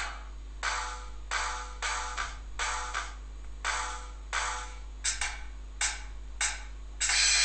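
Tom-tom drum samples from a touchscreen drum-pad app, played through an i-mobile i858 Android phone's small speaker and tapped out about every two-thirds of a second with no deep bass. Near the end comes a louder hit that keeps ringing.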